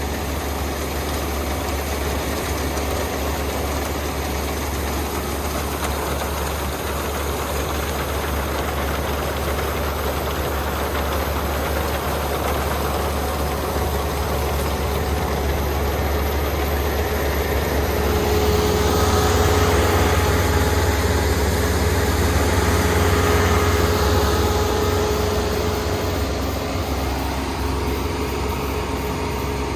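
Kubota combine harvester's diesel engine and threshing machinery running steadily as it harvests. It swells louder for several seconds past the middle, with a steady whine coming up.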